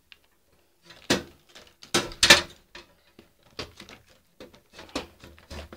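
A few sharp knocks and clicks as a hard drive is fitted into the slots of a desktop PC's drive bay, the loudest about two seconds in, with lighter taps after.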